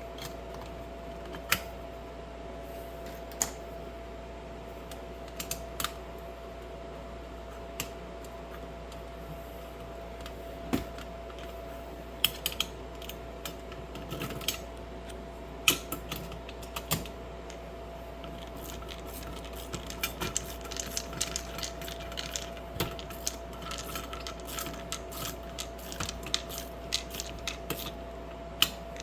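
Scattered sharp clicks and light taps of small metal parts being handled as the cover goes back on a dishwasher's electrical junction box, a few at a time at first and in quicker runs in the second half, over a steady faint hum.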